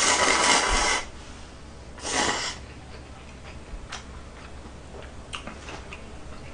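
A person slurping ramen noodles: a long slurp about a second long at the start, then a shorter one about two seconds in, followed by a few small clicks.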